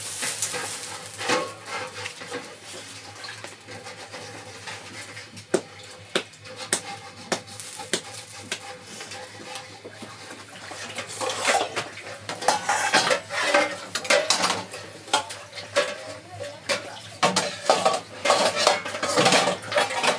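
Hands working bread dough out of an aluminium basin and shaping it into balls on a floured cloth: soft pats and scrapes of dough with irregular clinks and knocks of metal dishes. The clatter gets busier and louder about halfway through.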